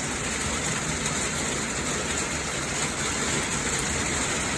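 Steady rain during a storm: an even, unbroken hiss.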